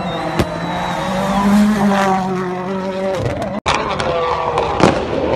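World Rally Car engine running hard on a stage and dropping in pitch as it goes past, with two sharp bangs. The sound breaks off for an instant about three and a half seconds in and picks up with the engine again falling in pitch.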